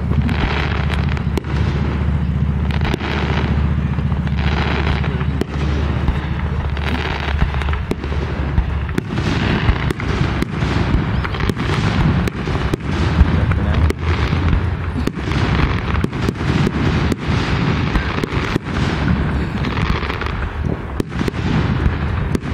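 Aerial fireworks display: shells bursting overhead as a continuous run of sharp bangs and booms over a low rumble. The bangs come closer together in the second half.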